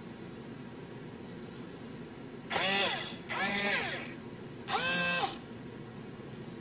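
Small legged toy robot's servo motors whirring in three short bursts, each whine rising and then falling in pitch as the legs move.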